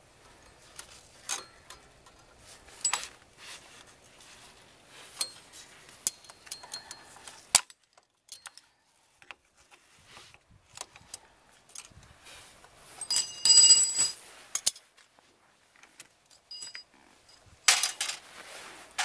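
Metal clicks and clinks of pliers working the shoe springs of a rear drum brake, with a brief ringing metallic jingle about two-thirds of the way through and a louder scrape near the end.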